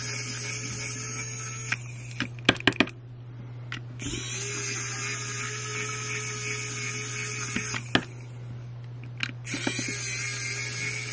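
Wowstick electric precision screwdriver whirring as it backs out the tiny screws of a power bank's end cap. It runs in three spells, with sharp clicks of the bit and screws in the pauses between.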